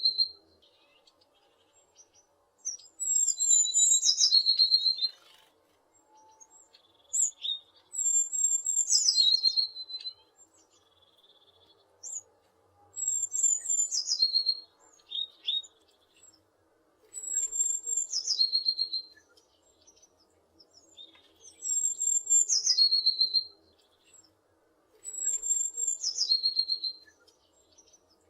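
A tit singing: short phrases of high, thin notes dropping into a quick lower trill, repeated every four to five seconds with pauses between.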